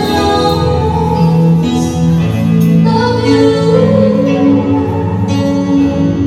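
Music: a song with a singing voice held over instrumental accompaniment.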